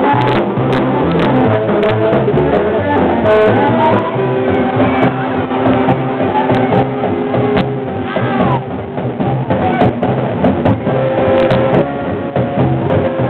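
Loud recorded show music with a steady beat, played over an outdoor stage's PA loudspeakers and heard loud and unclear through a small handheld camera's microphone.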